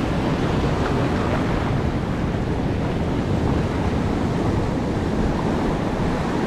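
Ocean surf breaking and washing over rocks, a steady rush of foaming water, with wind buffeting the microphone.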